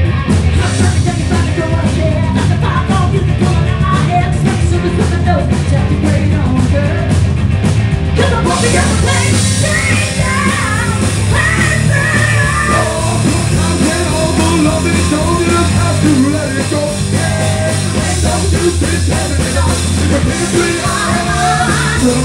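Loud live rock band playing, with guitars, bass and drums and a singer's voice over it; the sound grows fuller and brighter about eight seconds in.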